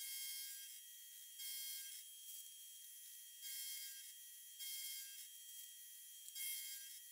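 Milling machine end mill cutting a pocket into a metal plate: five short, irregular bursts of cutting noise over a steady high whine.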